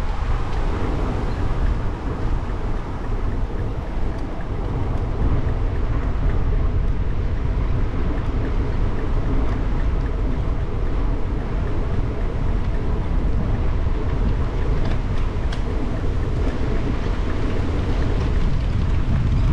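Steady wind noise buffeting a cyclist's action-camera microphone while riding, a heavy low rumble that flutters in level.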